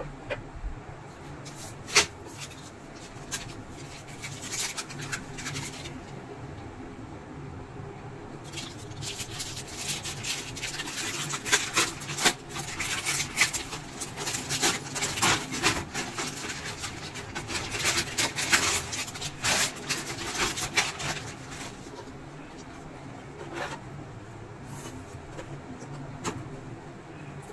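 A sharp click about two seconds in and some light rubbing, then around ten seconds of crisp crackling and rustling from a clear plastic packet being handled and opened.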